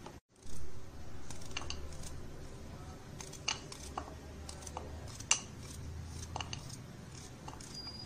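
A knife cutting raw green mango into small pieces in the hand, over a bowl: scattered small crisp clicks and taps as the blade goes through the firm flesh and pieces drop into the bowl, over a low steady hum.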